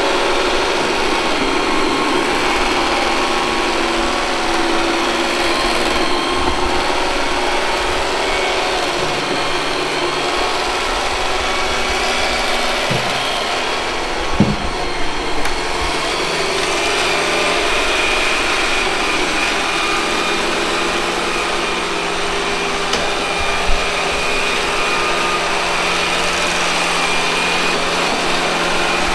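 Robot vacuum cleaner running, its suction motor and brushes making a steady whirring hum with a constant hiss. A few short knocks come about halfway through and once more near the end.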